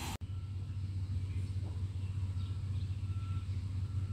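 Truck engine idling, a steady low rumble, with a faint short high beep repeating a little under once a second from about halfway in.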